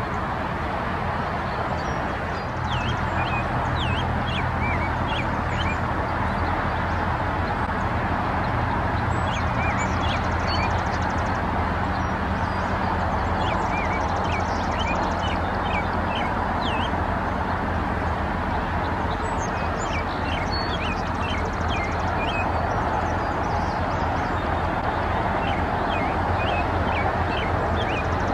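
Outdoor field ambience: small birds chirping in short calls scattered throughout, over a steady low rumble and hiss that grows a little louder about two and a half seconds in.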